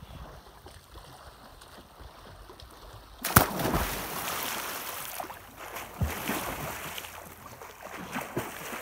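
A person jumping into deep water from a rock: one sudden loud splash a little over three seconds in, followed by churning water and irregular splashes as he swims. Before the jump, only light wind and gently lapping water.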